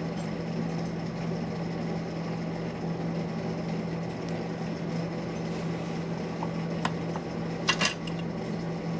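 Steady mechanical hum with a constant low tone, like a bench fan or fume extractor, while a soldering iron and desoldering braid are worked across a circuit board. A few light clicks sound about seven to eight seconds in.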